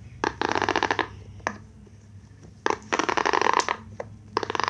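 Jumbo silicone pop-it fidget toy with a finger sliding across its rows of bubbles, popping them in fast runs of clicks: two runs of about a second each, and a third starting near the end.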